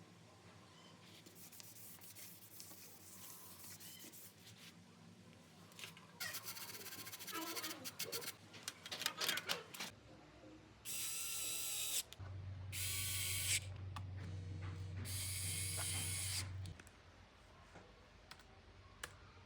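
Clicks and rubbing of hands working on small parts, then a small electric tool's motor running in three short bursts with a loud hiss, a steady low hum under the last two.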